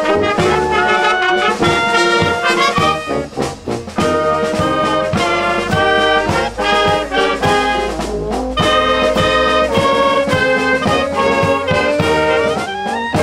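Wind band playing a piece together: clarinets, flutes, saxophone and brass over drum strokes that keep a steady beat.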